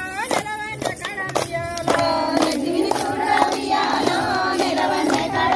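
Women singing a Bathukamma folk song together in a steady rhythm, with hand claps keeping the beat.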